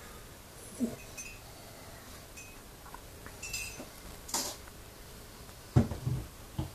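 Broken mirror glass clinking and scraping as pieces are moved, with a couple of dull thumps near the end, the first being the loudest.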